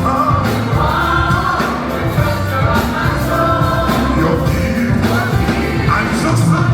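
Live gospel worship music: voices singing together over a band, steady and loud throughout.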